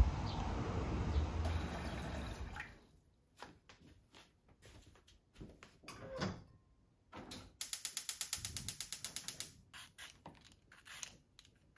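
Outdoor ambience with wind noise for the first couple of seconds, then quiet kitchen handling: water going into a pot about six seconds in, followed by a gas hob's igniter clicking rapidly, about eight clicks a second, for some two seconds. Near the end, a vegetable peeler scrapes a carrot in short strokes.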